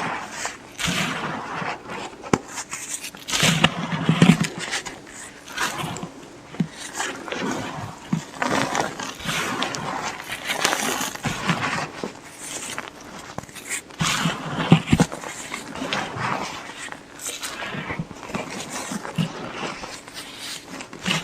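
A block of white Plain Jane gym chalk being crushed and crumbled by hand: a continuous run of irregular dry crunches, cracks and scrapes, with a few heavier knocks.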